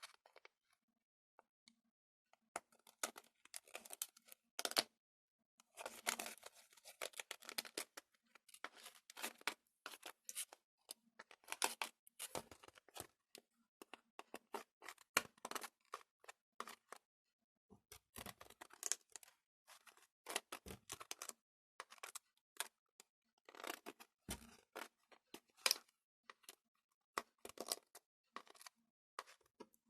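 Gelatin jelly slime being mixed and worked: an irregular run of soft clicks and crackles with short pauses.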